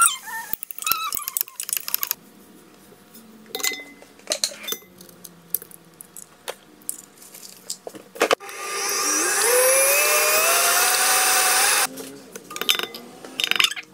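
Scattered clicks and knocks of ingredients going into a stainless steel mixing bowl. About eight seconds in comes a loud rushing sound whose pitch rises steadily for about three seconds before it cuts off suddenly, then a few more knocks.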